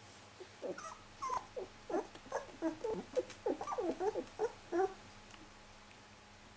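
Young puppies whimpering and squeaking in a quick run of short, high calls that stop about five seconds in.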